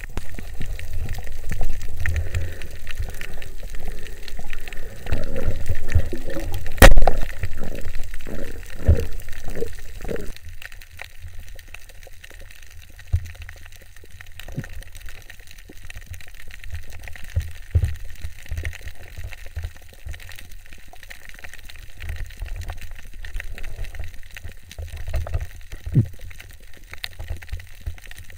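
Underwater water noise on a diver's camera, a low rumble and sloshing that is louder for the first ten seconds and quieter after. About seven seconds in comes one sharp, loud crack: a speargun being fired.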